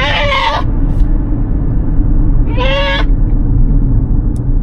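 A goat bleating twice, short calls about two and a half seconds apart, over a steady low rumble.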